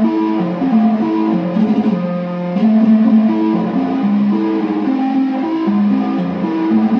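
Electrified kalimba (thumb piano) played through guitar effects pedals and amplifiers. Its plucked metal tines play a repeating melodic figure of steady notes that ring on and overlap one another.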